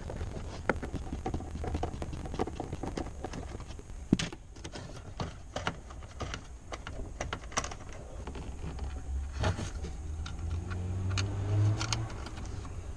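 Irregular light clicks and rattles of a metal nut driver and hard plastic as the tail light's mounting nuts and wiring connector are worked by hand. A low hum rises and falls about ten seconds in.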